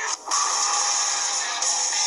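Music playing from the video being watched, steady and dense, after a brief break about a quarter second in.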